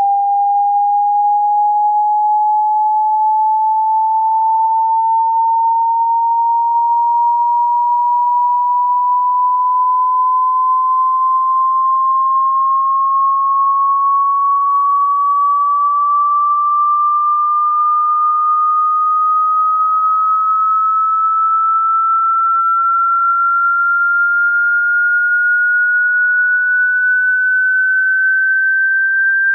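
Hearing-test sweep tone: a single pure electronic tone at steady loudness, rising slowly and evenly in pitch by about an octave over the half minute.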